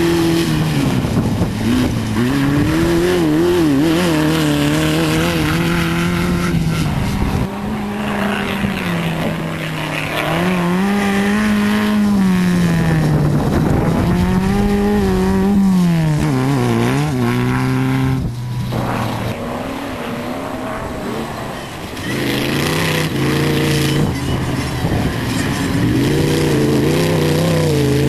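Off-road racing buggies' engines running hard as they pass, the engine note rising and falling repeatedly with throttle and gear changes. It goes quieter for a few seconds past the middle, then comes back up as another buggy approaches.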